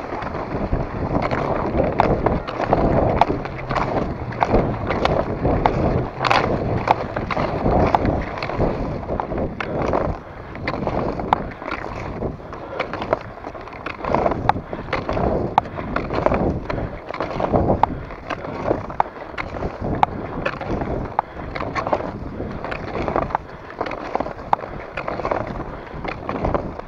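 Fischer cross-country skis skating on a packed snow track: a continuous swish and scrape of ski bases and edges on snow, with regular sharp clicks of pole tips planting, the skier's own and those of racers close ahead.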